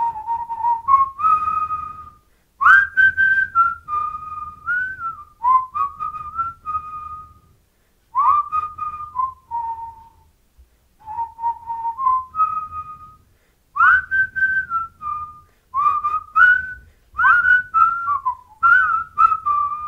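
A person whistling a tune in phrases of a few seconds, with short breaks between them.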